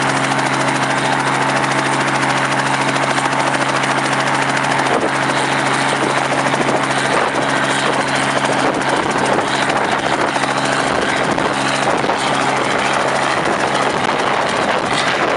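Helicopter running steadily, a loud continuous rotor and engine noise with a steady low hum.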